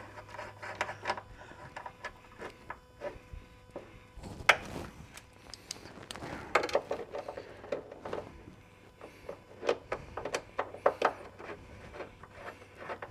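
Scattered light clicks and taps of hand work on small hardware: stainless countersunk bolts and a hex key being handled and turned under an aluminum rock slider, with a few louder knocks through the middle.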